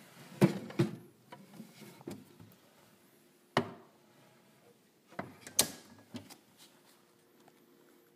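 Clicks and knocks from handling a wooden stereo console cabinet: a pair near the start, one about three and a half seconds in, and two more near five and a half seconds, over a faint steady hum.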